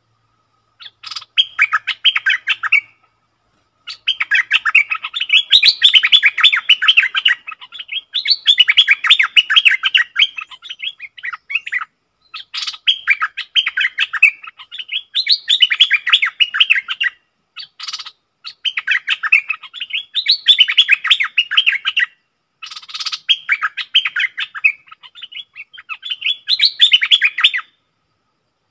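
Stripe-throated bulbul singing repeated phrases of rapid bubbling, warbling notes. Each phrase lasts one to three seconds, with short pauses between them.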